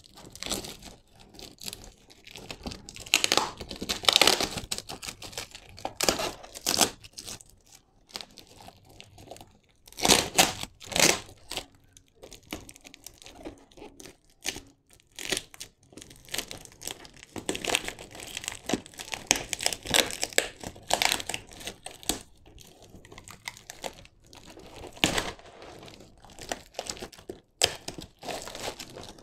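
Packing tape and plastic parcel wrapping being peeled, torn and crinkled by hand, in irregular bursts of tearing and rustling with short pauses between.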